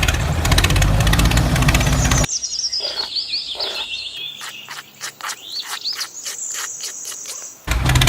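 A loud, steady machine-like noise that cuts off about two seconds in, giving way to a stretch of outdoor bird chirps and insect calls; the loud noise comes back suddenly near the end.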